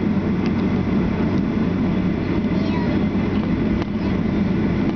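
Cabin noise inside a Boeing 757-200 rolling on the ground: a steady engine and airflow rumble with a low, even hum, with faint voices in the cabin.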